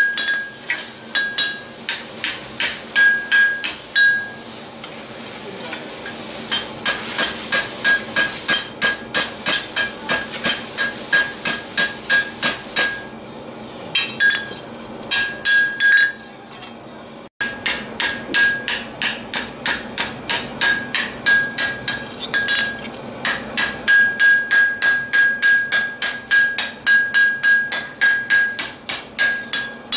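Hand hammer beating a sheet-steel shovel blade on a steel anvil, forming a coal-forge shovel. The blows come in a steady run of about two to three a second, many with a clear high anvil ring. They go softer for a few seconds around five seconds in and pause briefly a little past halfway.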